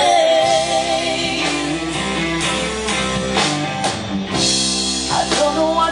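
Live band playing an instrumental break in a gospel song: electric guitar and drum kit with keyboard and bass. A held sung note trails off about half a second in.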